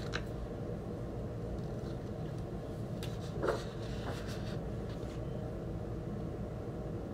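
Steady low background hum. Over it, about three and a half seconds in, a brief rustle of a flexible printed paper record sleeve being pulled out and flipped.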